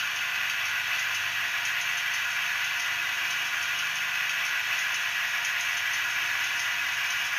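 Model locomotive sound decoder playing the Class 28's Crossley two-stroke diesel engine running steadily through the OO gauge model's onboard speaker as it creeps along, with a faint fast ticking.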